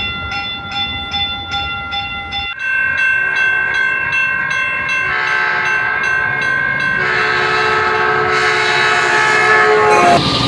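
Locomotive horn sounding: a held chord that shifts pitch several times and grows louder, after about two and a half seconds of rapidly repeating pulsed tones at the start.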